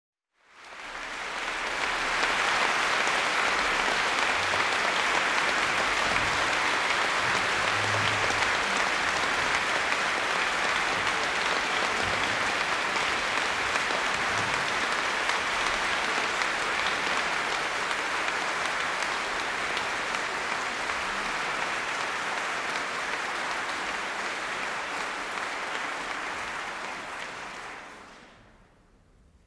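Concert-hall audience applauding steadily, fading out near the end.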